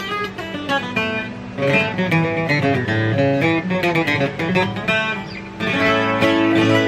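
A Takamine JJ 12-string acoustic guitar being played: picked single-note runs, then louder strummed chords about two-thirds of the way in. The guitar has just been set up with low action.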